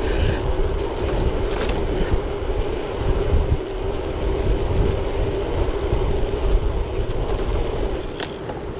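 Wind buffeting the microphone of a bike-mounted action camera while riding, a steady low rumble with a constant hum under it and a couple of brief clicks.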